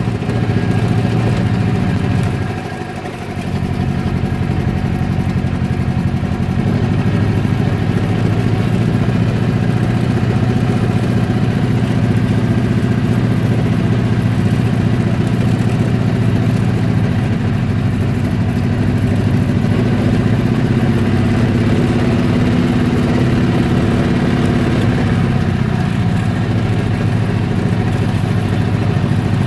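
Engine of a slow-moving vehicle running steadily at low speed, with a brief drop in level about three seconds in.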